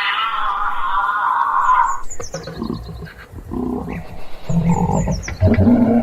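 Giraffe vocalizing: a rough, drawn-out call lasting about two seconds, then a series of louder, lower, rough sounds in the second half. A bird's short falling chirps repeat in the background.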